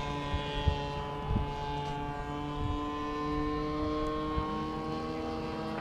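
Radio-controlled model airplane engine running in flight, a steady propeller drone whose pitch drifts slightly as the plane moves. Wind buffets the microphone with low thumps in the first second and a half.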